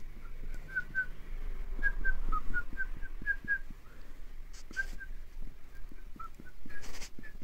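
A string of short, high-pitched chirps, about two or three a second and uneven in spacing, over a low hum, with a couple of soft knocks in the last few seconds.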